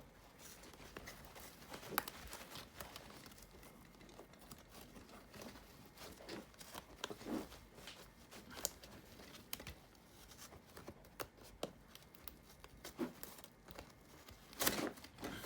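Hands fitting a 3D-printed plastic MOLLE adapter onto a vest's nylon webbing: scattered small plastic clicks, scrapes and rustling, with a louder burst of scraping and rustling near the end.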